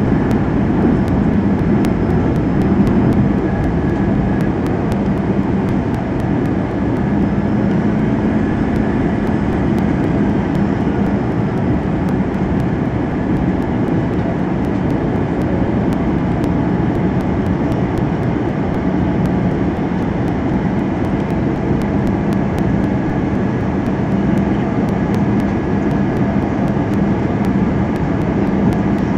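Airbus A320 cabin noise during the descent to landing: the steady roar of the jet engines and rushing air heard from inside the cabin, with a steady low hum under it.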